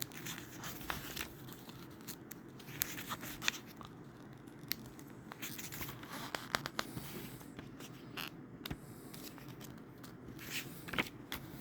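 Paper rustling and crinkling as the pages of a book are handled and turned, with scattered small clicks and taps.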